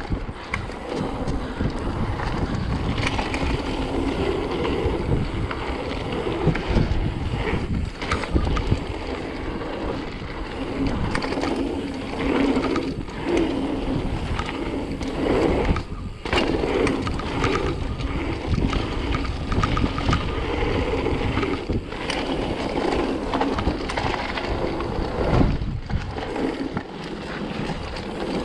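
A bicycle rolling fast over rough ground, with tyre rumble, rattling knocks from the bike and wind noise on the microphone, interrupted by a few brief lulls.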